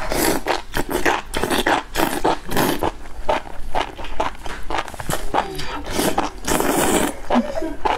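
Close, loud slurping and chewing of enoki mushroom strands in spicy broth, in quick irregular pulls, with one longer slurp about two-thirds of the way through.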